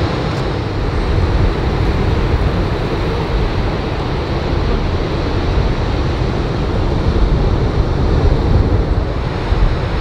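Surf breaking steadily on a sandy beach in a typhoon-raised swell, a continuous rushing noise with a heavy low rumble of wind on the microphone.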